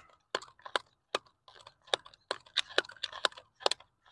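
Thin plastic water bottle, used as a hand reel, crackling and clicking in the hands as fishing line is wound back onto it. The clicks are sharp and irregular, a few a second, coming a little faster in the second half.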